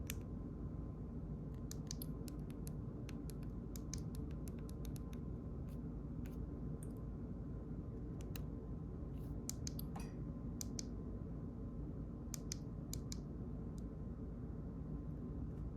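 Irregular light clicks and taps from a disassembled phone being handled and its buttons pressed, over a steady low hum.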